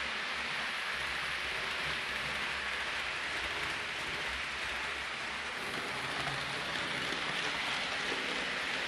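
Hornby Class 390 Pendolino model train running along the track: a steady rushing noise with a faint low hum underneath.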